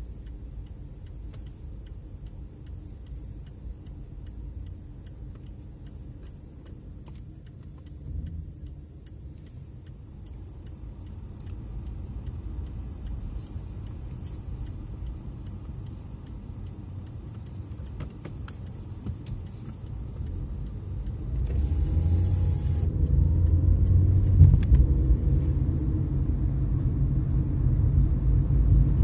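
Car engine and road rumble heard from inside the cabin, low and quiet while creeping along, then clearly louder about two-thirds of the way through as the car speeds up, with a brief rising engine tone.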